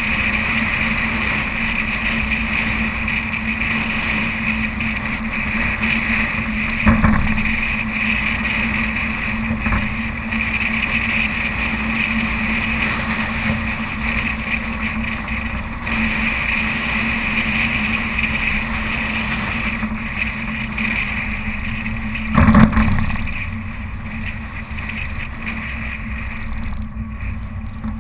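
Suzuki Vitara's engine running steadily while driving off-road, with a low hum under it. There are two knocks: one about seven seconds in and a louder one about three-quarters of the way through.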